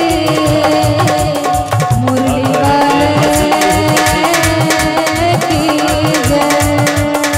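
Live Indian devotional accompaniment: tabla and dholak playing a fast, steady rhythm under long held keyboard melody notes that step between pitches.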